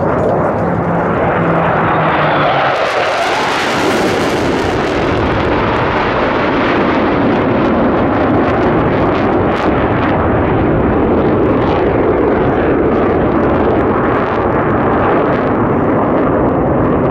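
Jet noise from a pair of F/A-18 Hornet fighters passing low. It swells to a loud peak with a hiss a few seconds in, then goes on as a steady heavy rumble.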